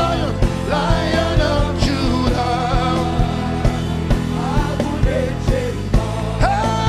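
Live worship band music with a steady drum beat and sustained keyboard chords, with voices singing over it.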